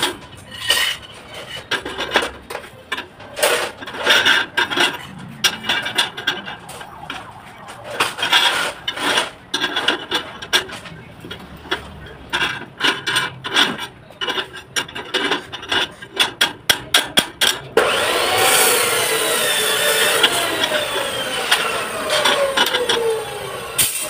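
Steel rebar being worked by hand: irregular clinks and taps of metal on metal. About 18 seconds in, a motor-driven tool starts and runs steadily, its whine sinking slowly in pitch as if under load.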